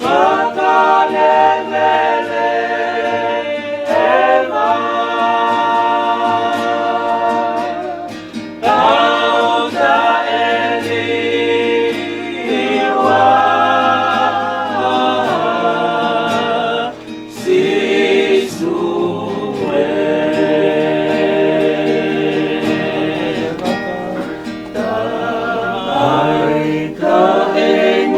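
A choir singing a slow hymn in Tongan, with long held notes.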